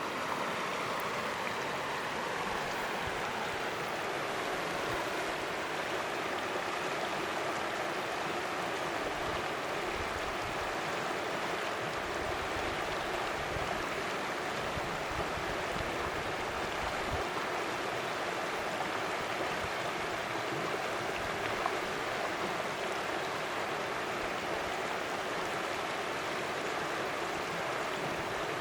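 A mountain forest creek flowing: a steady, unbroken rush of water.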